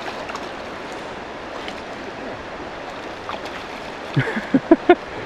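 Steady rush of the River Alness's flowing water, with a few brief vocal sounds from a person near the end.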